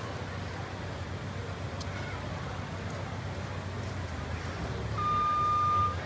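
A vehicle's reversing alarm starts near the end with one steady high beep about a second long, over a low steady engine hum.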